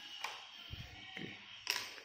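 Small plastic and metal mini 4WD kit parts being handled on a cutting mat: a few light clicks and taps and a soft thud, the sharpest click near the end.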